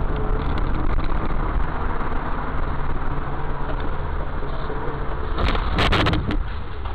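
Steady engine and road hum of a car driving, heard from inside its cabin by a dashcam. A short cluster of sharp knocks comes about five and a half to six seconds in.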